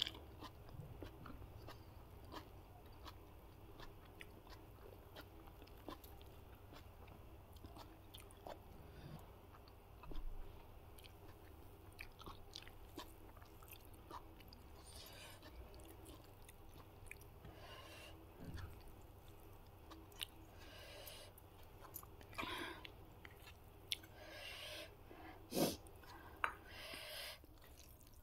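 Close-miked chewing: soft, wet mouth clicks and smacks, with louder spells of chewing in the second half. A single sharp click comes near the end.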